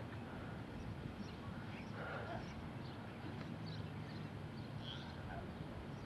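Steady low outdoor background rumble on a camcorder microphone, with scattered faint bird chirps and a brief scuffling sound about two seconds in.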